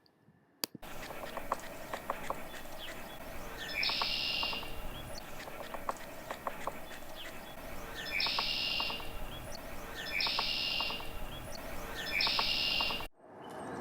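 A bird calling four times, each a harsh, raspy call under a second long, the first about four seconds in and the others about two seconds apart, over steady outdoor background with faint scattered ticks.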